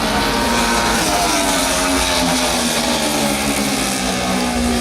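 Several 70cc racing motorcycle engines running hard at high revs together, their pitches drifting up and down as the riders work through the corners.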